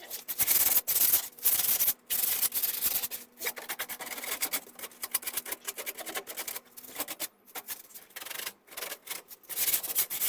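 Sandpaper rubbing on the painted wood of a pressure-treated fence panel in quick, irregular back-and-forth strokes with short breaks between them. This is a light surface sanding of the old paint before recoating, not stripping it to bare wood.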